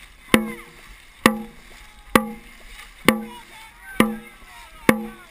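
Dragon boat drum struck with a stick in a steady beat, six loud strokes about one a second, each with a short pitched boom, setting the paddlers' stroke pace; paddle and water noise runs between the beats.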